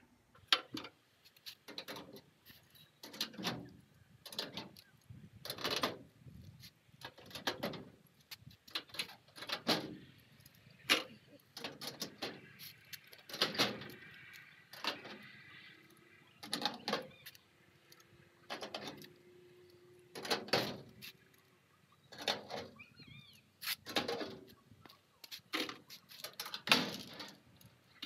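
Hand work on the bus's sheet-metal battery-box panel as it is unfastened and taken off: a string of metallic clicks, clinks and knocks about every second, some ringing briefly. A short high ringing tone sounds about halfway through.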